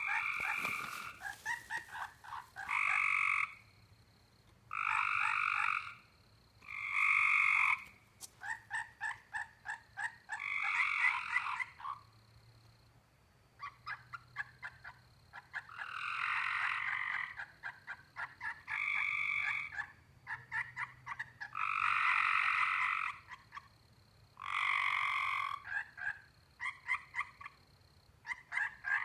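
Frogs calling: buzzy trills about a second long, repeated every couple of seconds, alternate with runs of quick clicking notes.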